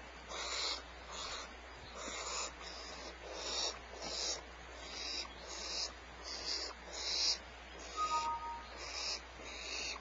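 Barn owl young giving repeated raspy hissing calls in the nest cavity, short bursts coming roughly one or two a second. These are the snoring begging calls of barn owl nestlings and fledglings asking for food.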